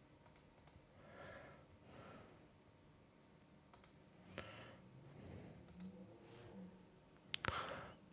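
Faint scattered clicks at a computer, with soft swishing noises between them; the strongest clicks, a quick pair, come near the end.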